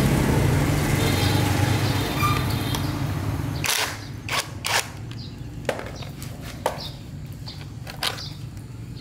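An engine running steadily, cutting off abruptly about four seconds in, followed by a few sharp clicks and knocks.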